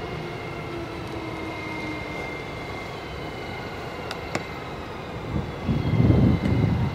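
Electric multiple unit's traction drive whining as it moves along the far track: a steady tone with several tones slowly falling in pitch, over a low running rumble. About five and a half seconds in, loud gusts of wind start buffeting the microphone.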